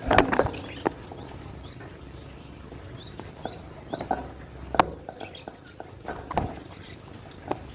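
Cinereous tit calling: clusters of short, quickly falling high chirps in rapid runs, about a second in and again around three to four seconds in. Several loud sharp knocks break in among them, the loudest right at the start.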